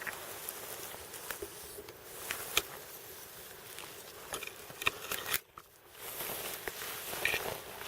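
Footsteps and rustling of a hunter walking through dry grass and brush, with scattered irregular crackles and clicks over a steady hiss.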